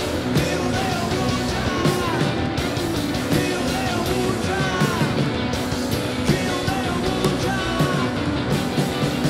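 Live rock band playing: electric guitar and drums with a steady beat, and a short gliding melodic phrase that repeats every second or two.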